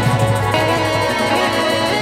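Background music: a steady instrumental track with sustained melodic tones over a bass line.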